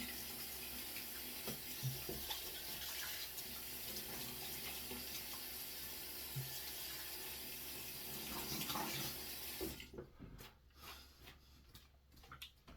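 Bathroom sink tap running steadily with water splashing, as the shave is rinsed off during clean-up; the water stops suddenly near the end, followed by a few faint clicks and knocks.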